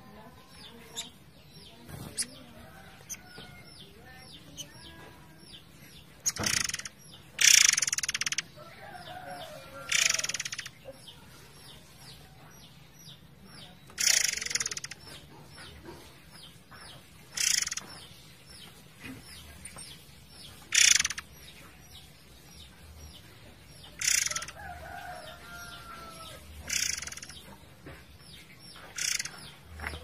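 Murai air songbird giving a series of loud, harsh rasping calls every few seconds, each under a second long, with softer warbled notes between them. A steady faint rush of flowing water lies underneath.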